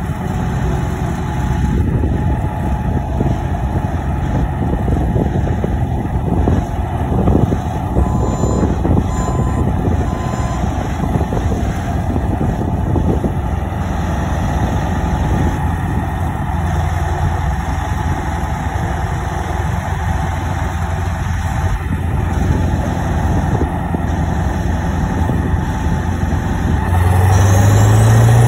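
Heavy diesel machinery running steadily: a 1985 Jones tub grinder working alongside a skid-steer loader and a grapple loader. Three short beeps from a backup alarm come about eight to ten seconds in. Near the end an engine rises in pitch and gets louder, as the grinder's engine takes load and puffs black smoke.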